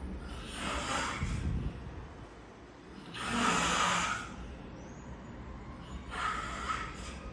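A sleeping man snoring: three noisy breaths about three seconds apart, the middle one the loudest.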